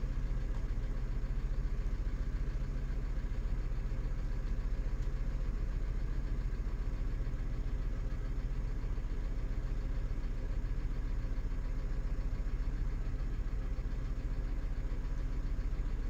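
A steady low mechanical hum, like a running engine or motor, with no change in pitch or level.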